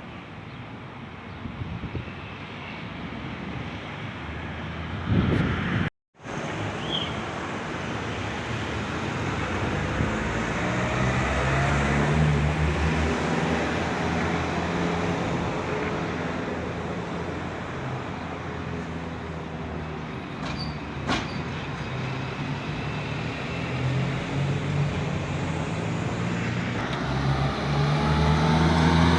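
Road traffic: vehicle engines running and passing in a steady din, with an engine speeding up near the end. The sound drops out completely for a moment about six seconds in.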